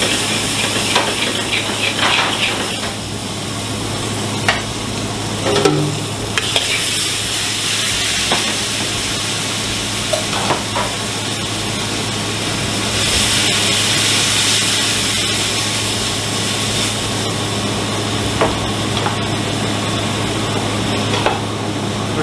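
Food sizzling and frying in metal pans on a commercial gas range, with a utensil stirring and knocking against the pans now and then, over a steady low hum.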